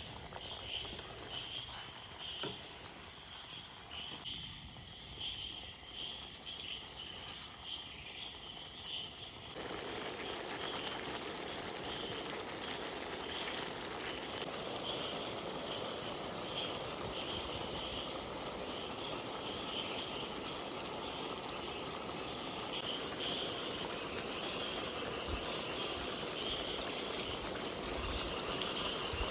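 Crickets chirping in steady regular pulses, with an even hiss joining in about ten seconds in.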